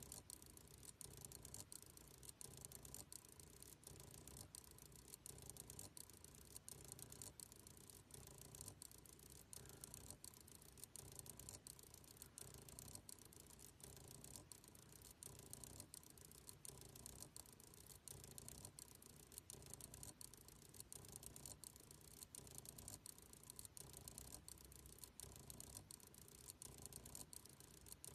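Faint buzzing whir of small 28BYJ-48 geared stepper motors being driven, swelling and fading in a slow regular rhythm.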